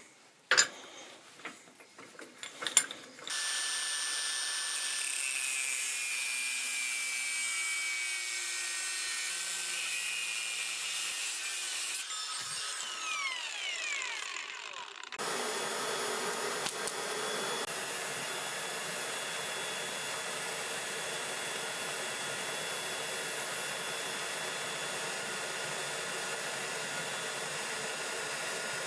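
A few light metal clinks, then an angle grinder running and cutting the coil-spring steel, falling in pitch as it winds down about twelve seconds in. About fifteen seconds in, an electric forge blower switches on and runs with a steady hiss.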